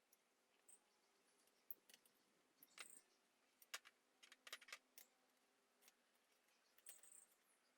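Faint, irregular light clicks and taps, with a small cluster of them in the middle, over near silence.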